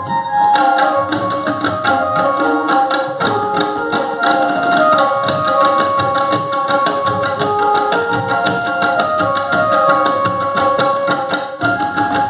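An ensemble of tabla players drumming together in quick, dense strokes over a held melody line that moves step by step in pitch.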